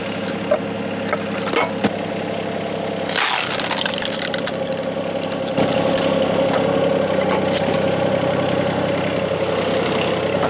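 Volvo EC20 mini excavator's diesel engine running steadily while its hydraulics drive a splitter wedge through firewood. A few sharp knocks in the first two seconds and a short crackle about three seconds in, and the engine note gets louder from about five and a half seconds as the hydraulics take load.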